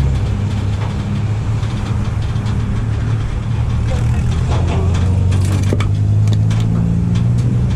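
A truck engine idling steadily with a low, even hum. A few light clicks come about five to six seconds in.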